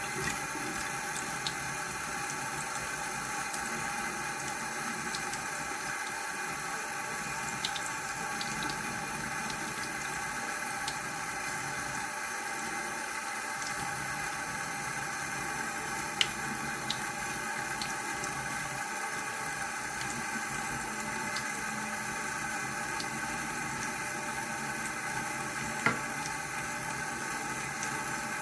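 Water running steadily, an even rushing without a break. A few small clicks sound over it, with a sharper one a little past midway and another near the end.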